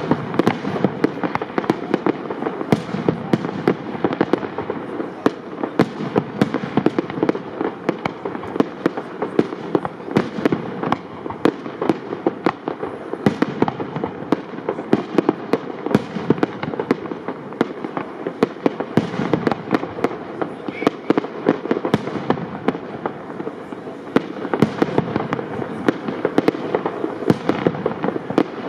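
Aerial fireworks display: shells of up to 75 mm calibre launching and bursting in a dense, unbroken barrage, many sharp reports every second.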